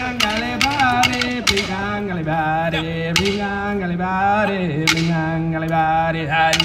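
Male voice chanting a traditional Aboriginal song in long held notes that step down in pitch, with sharp stick-like clicks in the first second or so and again near the end.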